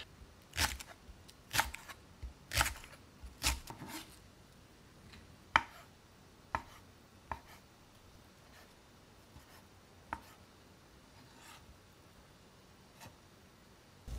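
Kitchen knife chopping on a cutting board: four strokes about a second apart, then a few scattered, quieter single knocks further apart.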